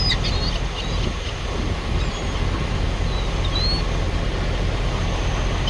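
Small birds chirping a few times, short high notes near the start and a rising chirp about three seconds in, over a steady low rumble.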